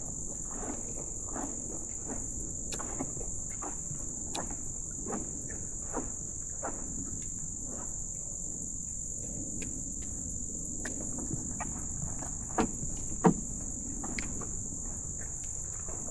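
A steady, high-pitched insect chorus drones without a break, with scattered soft knocks and rustles throughout. Two sharper, louder knocks come about three-quarters of the way through.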